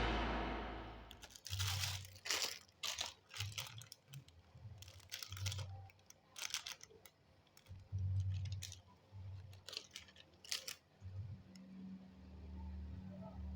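Packaging being handled and opened: irregular crinkling, tearing and crunching of plastic and cardboard, with soft handling thumps, thinning out toward the end.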